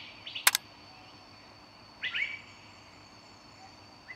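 Small birds chirping in short clusters of quick rising notes, near the start, about two seconds in and again at the end, over a faint steady hum. A single sharp click about half a second in is the loudest sound.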